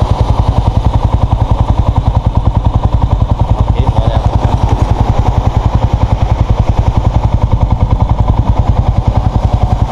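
Small motorcycle engine idling steadily, a fast, even pulse of about ten beats a second.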